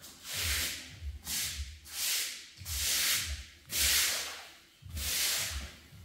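Long-handled floor brush scrubbing a wet concrete floor: six rasping swishes, about one stroke a second.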